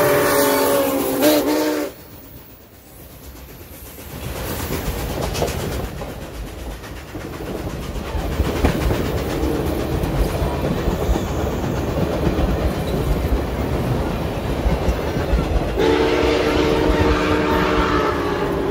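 Nickel Plate Road 765's steam whistle blowing a chord of several notes, cutting off about two seconds in; then passenger cars rolling past with wheels clattering over rail joints, and the whistle sounds again near the end.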